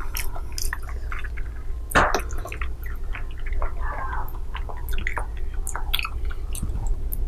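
Close-miked chewing of soft mango and dragon fruit jelly: irregular wet squishes and mouth clicks, with a louder smack about two seconds in.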